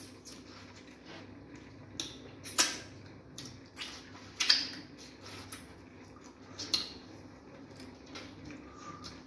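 Close-up eating sounds of fufu and banga soup eaten by hand: several sharp, wet mouth smacks while chewing, the loudest about two and a half and four and a half seconds in.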